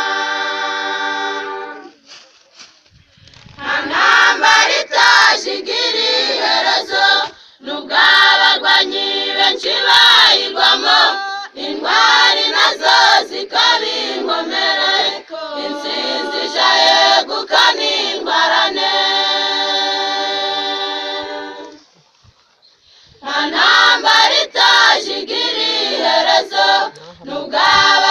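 Choir singing a Kinyarwanda song without instruments, in phrases with held chords, breaking off briefly about two seconds in and again about three-quarters through.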